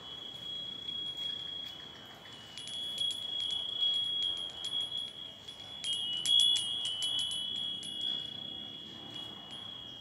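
Wind chime of three small hanging metal bells ringing in the breeze: a high, clear tone that rings on, struck again and again, with a flurry of strikes about six seconds in where a second, slightly lower tone joins.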